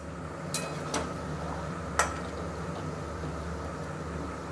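A few light clicks of metal cookware, a spatula or lid tapping the cooking pot, spread over about two seconds above a steady low kitchen hum.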